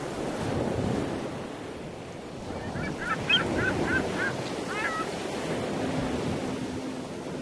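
Surf ambience: a steady wash of waves on a shore, with a bird calling a quick series of about six short notes in the middle. A low steady musical tone comes in near the end.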